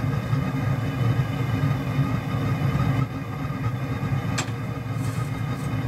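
Steady low roar and hum of the forge running, with one sharp click about four and a half seconds in.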